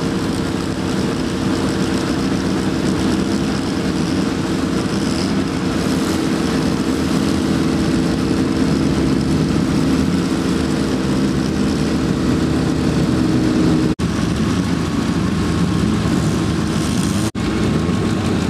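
Several historic racing car engines running steadily as the cars roll slowly in a queue, a continuous low engine note. The sound is broken by two very short gaps near the end.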